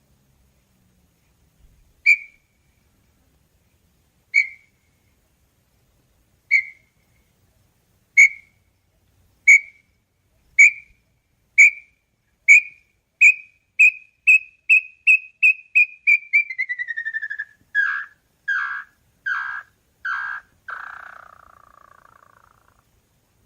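Small-billed tinamou (inhambu-chororó) singing one full song of clear whistled notes. The notes start about two seconds apart, then speed up into a fast run that slides down in pitch. The song ends in four longer, falling notes, the last one trailing off.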